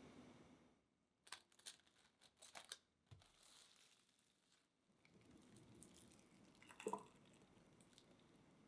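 Plastic cling wrap crackling and crinkling in quick sharp bursts as it is stretched over a glass bowl. About seven seconds in comes a short knock as the bowl is set down on a pot.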